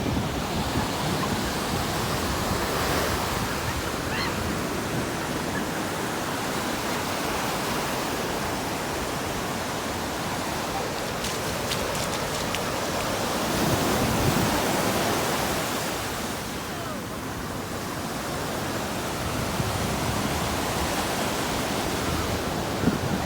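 Ocean surf breaking and washing on the beach: a steady rush that swells a little past the middle and then eases off.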